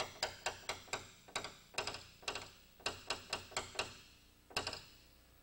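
Light, quick hammer taps on a tape-covered nail-set tapper against a car body panel, about four a second with a short metallic ring, then a pause and one last tap near the end. The hammer is barely lifted and let drop, gently tapping down a high spot in paintless dent repair.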